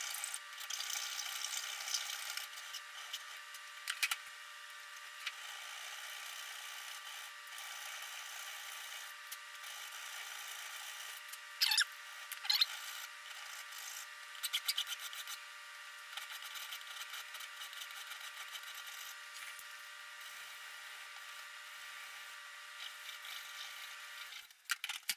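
Hand file and hand countersink tool scraping the edges of a 4140 steel bar to deburr it. The strokes come and go, with louder scrapes near the start, about four seconds in, and two sharp ones about twelve seconds in.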